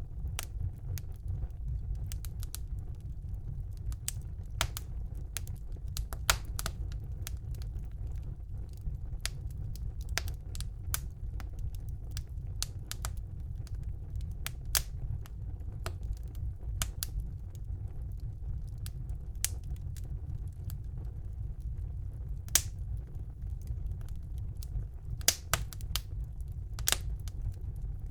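Wood fire burning in a fireplace: a steady low rumble of the flames with sharp, irregular crackles and pops from the burning logs.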